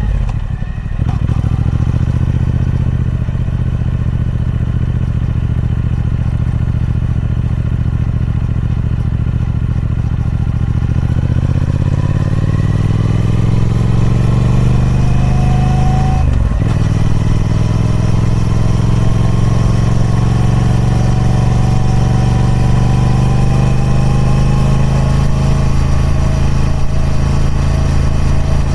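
Triumph Speed Twin 1200's 1200cc 270-degree parallel-twin engine running through its stock exhaust under way. The note holds steady, then rises from about twelve seconds in, drops sharply for a gear change about sixteen seconds in, and climbs again more slowly.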